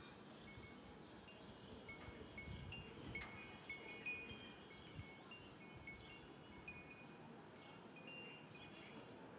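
Faint wind chimes tinkling: many short, high ringing notes at scattered pitches, with a soft knock about three seconds in.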